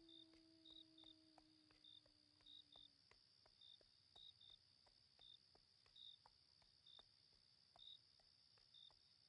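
Night ambience of crickets chirping, quiet: short chirps about twice a second over a steady high-pitched ring. A soft low held tone fades away about three seconds in.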